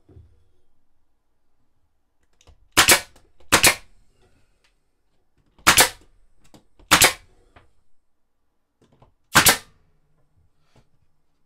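Nail gun firing five times, each a sharp, loud crack as it drives a nail into the cupboard framing, at irregular gaps of one to two and a half seconds.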